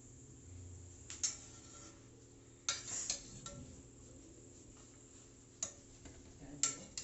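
Metal kitchenware clinking, a spoon or utensil against a cooking pot: about five sharp clinks with short ringing, spread over a few seconds, over a low steady hum.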